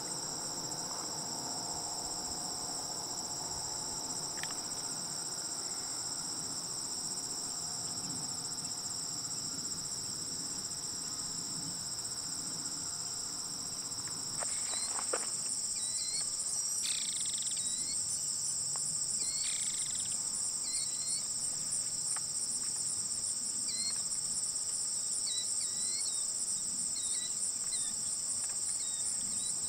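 Steady high-pitched chorus of insects, stepping up louder about halfway through, with short chirps repeating over it in the second half.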